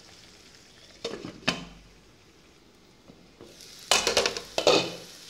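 Spatula scraping and stirring chicken masala in a non-stick frying pan: a couple of strokes about a second in and a quick cluster near four seconds. Faint sizzling of the masala frying on a medium flame between the strokes.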